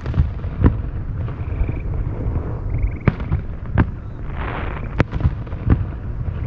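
Aerial fireworks shells bursting from about 4,000 feet away: about six sharp booms, roughly in pairs, with a brief hiss a little past four seconds in. A steady low rumble runs underneath.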